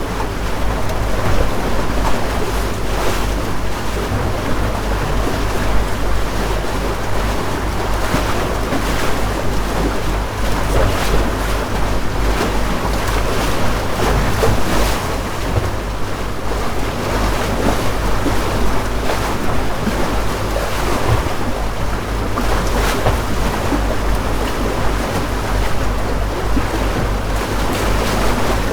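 Houseboat under way: water splashing and lapping against the hull over the steady low rumble of its motor, with wind on the microphone.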